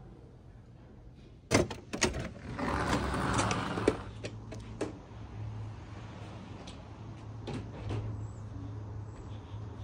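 A door opening with a couple of sharp clicks and a rustling scrape as someone steps through, then a few light footsteps on tile over a low steady hum.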